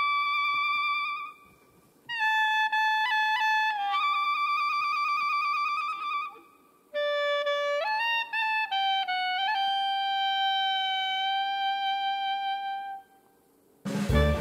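Background music: a single wind instrument playing long held notes in short phrases, with brief pauses between them. Right at the end a fuller band with drums comes in.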